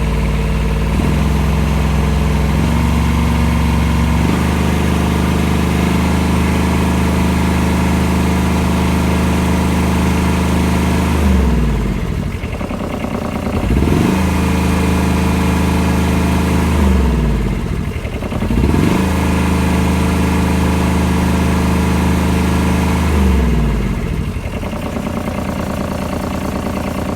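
Kubota combine's diesel engine running, its speed raised in steps over the first few seconds, then twice dropped to idle and brought back up to high speed, falling back to idle near the end.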